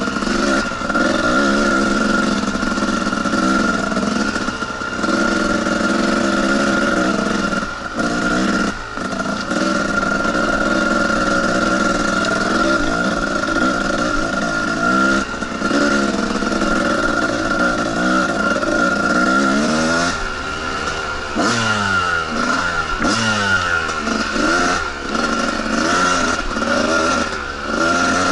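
Two-stroke dirt bike engine running steadily under way. From about twenty seconds in, the revs rise and fall in quick repeated sweeps as the throttle is worked.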